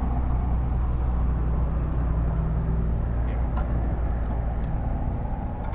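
Steady low drone of a vehicle engine under way, with a couple of faint clicks about three and a half seconds in.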